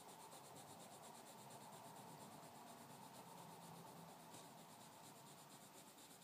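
Faint scratching of a pencil shading on paper in quick back-and-forth strokes.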